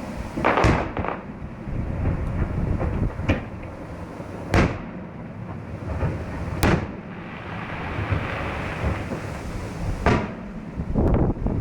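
Fireworks display: about six sharp bangs, a few seconds apart, over a steady rumble.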